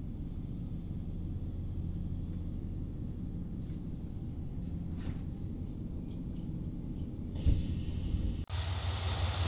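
Diesel railcars idling at a station stop: a steady low engine hum, with a hiss coming in near the end before the sound cuts off suddenly.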